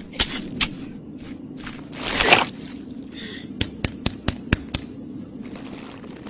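Scraping and rustling in dry sand, swelling to a loud scrape about two seconds in, then a quick run of sharp clicks, over a low steady hum.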